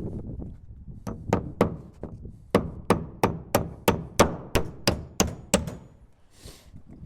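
Hammer driving an eightpenny nail into a fascia board: three blows, a short pause, then about ten quick, louder blows at roughly three a second.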